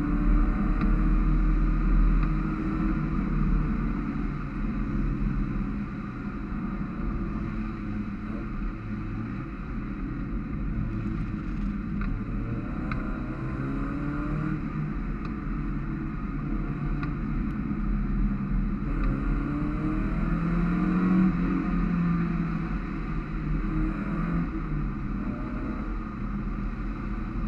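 Mazda MX-5 race car's four-cylinder engine heard from inside the cockpit at racing speed. Its pitch climbs again and again as it revs up through the gears, then drops back as it eases off.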